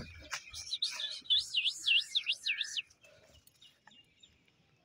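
A bird calling: a quick run of about six high, whistled notes, each swooping up and down, lasting about two seconds and stopping about three seconds in.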